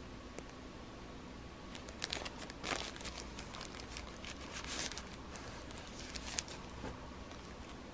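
Clear plastic wrapping around a new mobile phone crinkling and crackling as hands handle it, in a run of uneven crackles starting about two seconds in.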